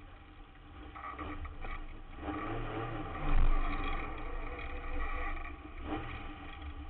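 Autograss race car's engine running at low speed, heard inside the stripped, roll-caged cabin as the car rolls slowly over the dirt, with a few knocks and a heavier low thump about three and a half seconds in.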